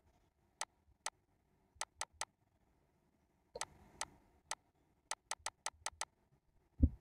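Computer mouse button clicking, about fifteen short, sharp clicks at uneven spacing, with a quick run of clicks near the end. A brief low thump comes just before the end.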